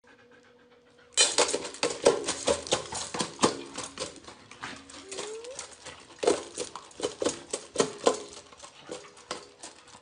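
Husky eating dry kibble from a stainless steel bowl: irregular crunching, with pieces clattering against the metal. The clicking starts suddenly about a second in.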